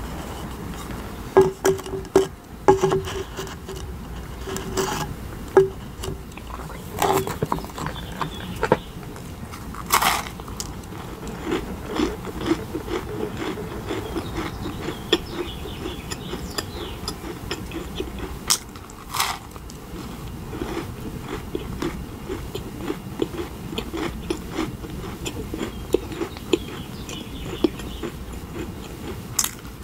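Close-up eating sounds of macarons being bitten and chewed, their crisp shells crunching. Scattered sharp clicks and taps run throughout.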